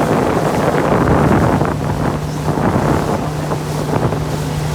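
Motorboat under way: a steady engine hum with water rushing past the hull and wind buffeting the microphone, the rush loudest in the first couple of seconds.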